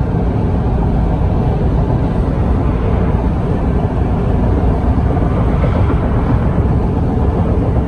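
Steady, loud travel noise of a moving vehicle heard from inside it: an even low rumble and rush of wheels and wind with no breaks.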